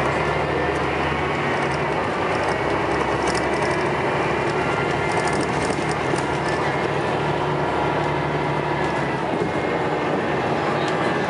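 Scania L94UB single-deck bus heard from inside while driving: its engine running with a steady low note, with the interior panels and fittings rattling and clicking. The low engine note changes about nine seconds in.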